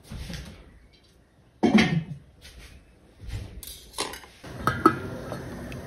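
Kitchen clatter of knife, plates and pots on a stone counter: a few separate knocks and clinks, ending in sharp metallic clinks that ring briefly. A steady hiss sets in near the end.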